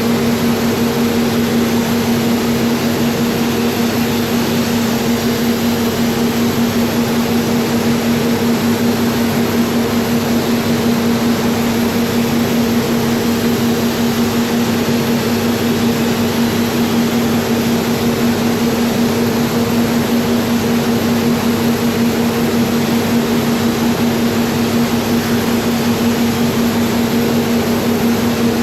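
Paint spray booth's ventilation fans running: a steady low hum over an even rushing hiss of air.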